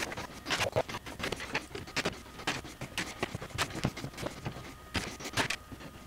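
Small red-handled snips cutting copper wire into short pieces: a run of sharp, irregular clicks, several a second.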